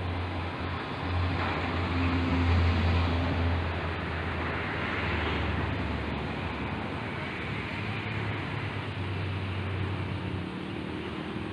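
Road traffic going past close by: a steady low engine and tyre hum that swells twice as vehicles pass, about a second in and again around the middle.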